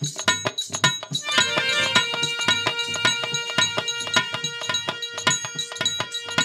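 Harmonium playing a melody over a dholak beating a quick, even rhythm: Bhojpuri folk instrumental music.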